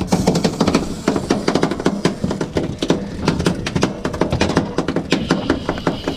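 A fly reel clicking rapidly and irregularly as a hooked albacore tuna pulls on the line and the rod is worked.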